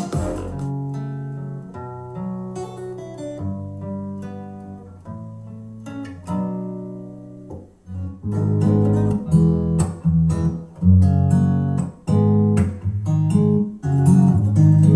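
Acoustic guitar music played through a Mackie Thump 212XT powered PA speaker: a plucked guitar piece that starts softly and grows louder, with fuller bass notes from about eight seconds in.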